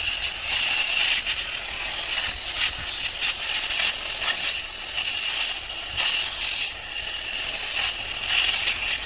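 Compressed air hissing from an air-compressor hose as it blows dust out of a dusty mower engine air filter from the inside out, the hiss wavering in loudness as the nozzle moves.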